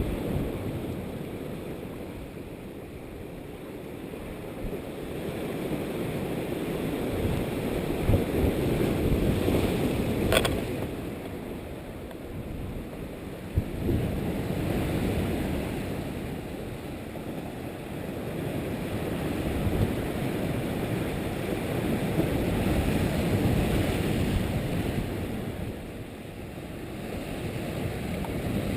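Strong wind rumbling on a GoPro Hero 2's microphone in a steady 30 mph wind, swelling and easing every several seconds, with a sharp click about ten seconds in.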